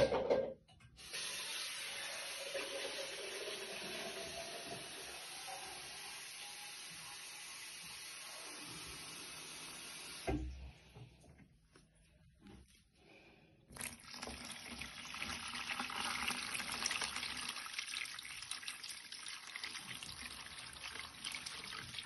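Bosch washing machine filling: mains water from the inlet valve rushing into the detergent drawer, with a sharp knock at the start. The flow stops with a knock about ten seconds in, and a few seconds later resumes as splashing, trickling water.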